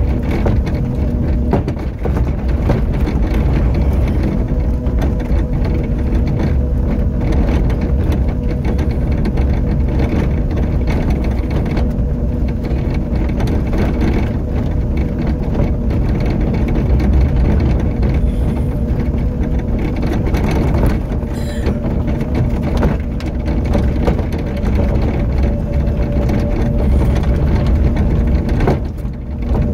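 Small electric vehicle's drive motor running with a steady whine over a low rumble, with rattling and jolts as it rolls along a rough dirt path.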